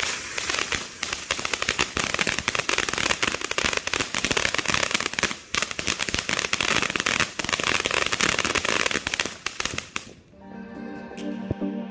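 TNT Centennial firework fountain in its finale: dense, rapid crackling of crackle stars over the fountain's spray hiss. It thins out and stops about ten seconds in, and background music fades in near the end.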